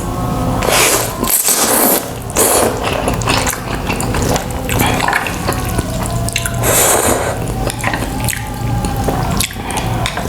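Close-up wet slurping and chewing of spicy instant ramen noodles, with long loud slurps about a second in and again near the seven-second mark, and small clicks in between.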